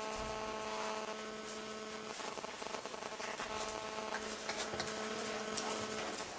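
A steady hum held at one pitch with overtones, broken briefly about two seconds in and stopping near the end, over faint hoof falls of a horse walking in arena sand.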